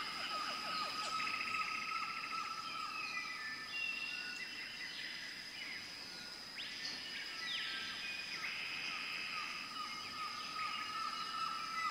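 Several small birds chirping and trilling, with short calls and a few rapid trills. A steady high-pitched drone runs underneath them.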